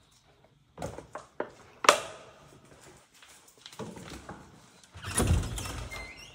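Plastic bottles and jars knocking and clicking as they are picked up off a table, with one sharp knock about two seconds in. About five seconds in, a louder rush of bumping and rubbing as a door is pushed open.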